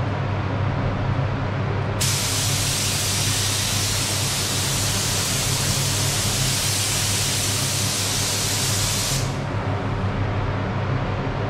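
Compressed-air paint spray gun spraying: a steady hiss that starts abruptly about two seconds in and cuts off about seven seconds later, over a steady low hum.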